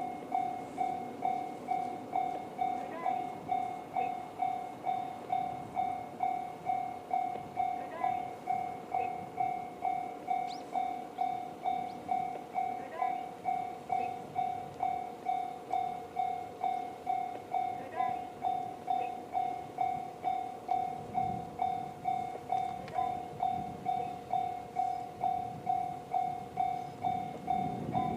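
Japanese railway level-crossing alarm in the JR standard electronic tone: one clear pitch struck over and over, about twice a second. A low rumble builds under it near the end.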